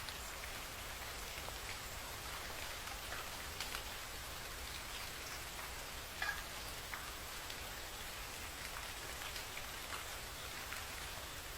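Steady rainfall hissing, with scattered individual drops ticking on a hard surface and a faint steady low rumble underneath. One louder drop tick comes a little past halfway.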